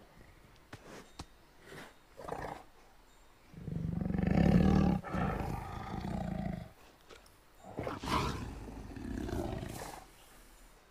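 Recorded tiger roar played by Google Search's 3D tiger model. A few short growls come first, then a long, loud roar with a brief break about four seconds in, and a second, softer roar near the end.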